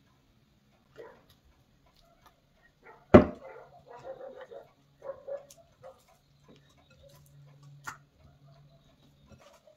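Hands kneading butter into soft, sticky sweet-bread dough in a glass bowl: wet squishing and slapping of the dough, with one sharp knock about three seconds in and a short click near the end.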